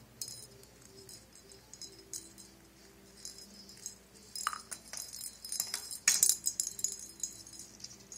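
A parrot's toy being jingled and clinked in irregular bursts of small metallic clicks, loudest about four and a half and six seconds in, as an Indian ringneck parrot plays with it.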